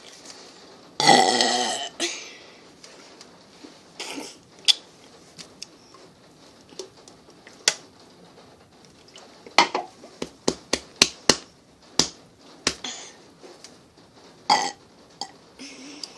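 A person burping: one loud, drawn-out burp lasting about a second, a second into the clip. Later comes a quick run of sharp clicks or taps, then a short second burp-like sound near the end.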